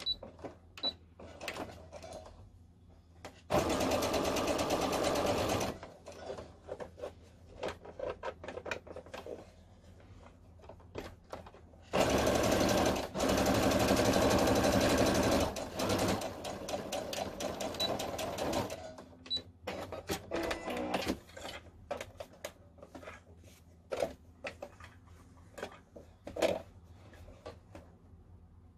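Sewing machine stitching in two runs, one about two seconds long and one about three and a half seconds long, sewing the seam around two layers of cotton mask fabric. Short clicks and taps come between and after the runs.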